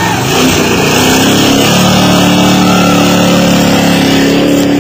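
Mud-bog pickup truck's engine revving hard through a flooded mud hole. The revs climb in the first couple of seconds and then hold high and steady over a loud hiss of churned mud and water.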